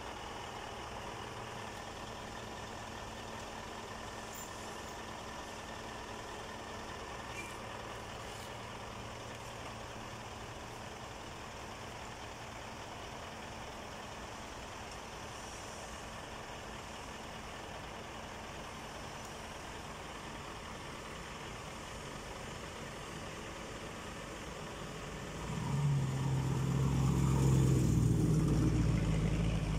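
Heavy diesel engine idling steadily. About 25 seconds in, a deeper, much louder engine note comes in and holds nearly to the end.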